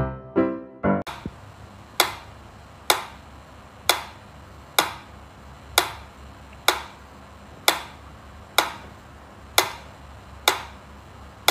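Black pyramid-style mechanical metronome ticking steadily, sharp clicks about once a second as its pendulum swings. Piano music plays briefly and stops about a second in.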